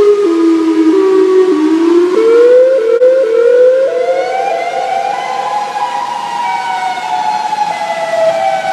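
Outdoor tornado warning siren sounding a two-tone wail. Its pitch dips, climbs in small steps to its highest about five seconds in, then slowly falls.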